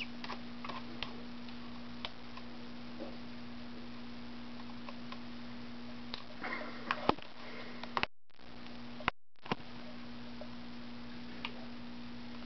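Small, scattered beak taps and ticks from a pet sparrow pecking at a noodle, with a busier run of scratchy clicks about six to seven seconds in. Under them runs a steady hum and hiss, and the sound drops out briefly twice around eight to nine seconds.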